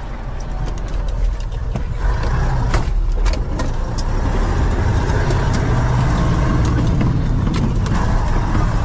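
A motor vehicle's engine running under way, growing louder over the first two seconds and then steady, with scattered rattling clicks.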